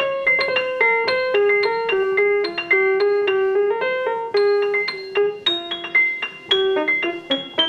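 Instrumental music: a melody of clear, ringing keyboard notes played in a steady run, about three to four notes a second.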